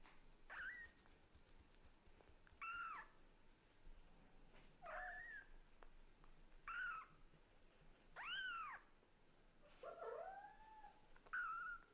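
Very young Scottish Fold–British Shorthair kittens mewing: about seven short, high-pitched mews, each rising and then falling in pitch, coming every second and a half or so, calling for their mother cat.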